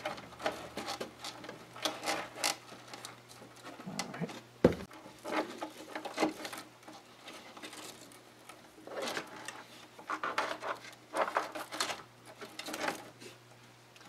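Power supply cables rustling and scraping as they are pushed through a cable cutout in a PC case, with scattered light clicks. There is one sharp knock about a third of the way in.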